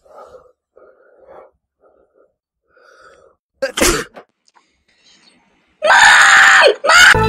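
A man sneezing: a few faint catching breaths, then a sharp sneeze about four seconds in, and near the end a louder, longer sneezing outburst in two parts.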